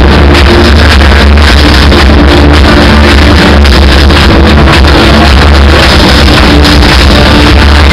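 A deathcore band playing live: electric guitars and drums, very loud and unbroken, with a heavy low end.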